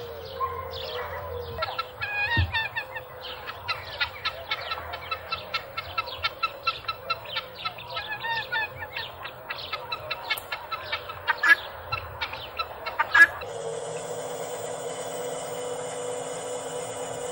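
Farmyard poultry clucking and calling in a quick run of short, repeated calls. About thirteen seconds in, the sound cuts abruptly to a steady hum.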